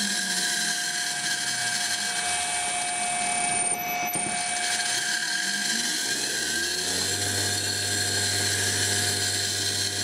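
A washing machine motor driven by a variable frequency drive (VFD). Its pitch sinks as it slows over the first few seconds, then rises again as it speeds back up and settles into a steady hum at speed. A steady high whistle sounds throughout.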